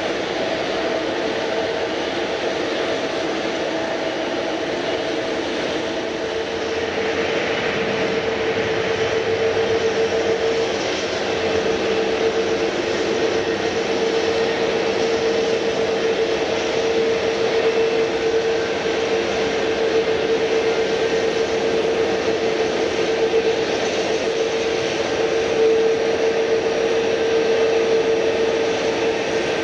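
Jet airliner engines running: a steady whine over a broad rush, growing a little louder about a third of the way in.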